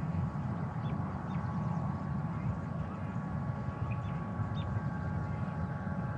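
Steady low outdoor rumble, like wind on the microphone, with a few faint, short bird chirps scattered through it.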